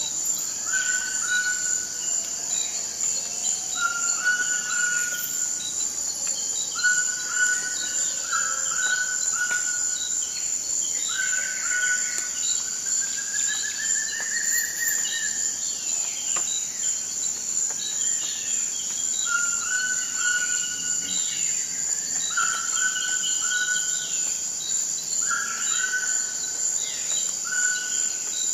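Forest ambience: a steady, high-pitched insect drone under birds calling over and over in short whistled phrases, with one longer rising call about halfway through.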